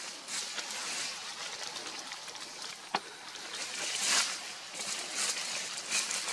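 Rustling in dry leaf litter as macaques shift about on the forest floor, an uneven hiss that swells a little about four seconds in, with one sharp click about three seconds in.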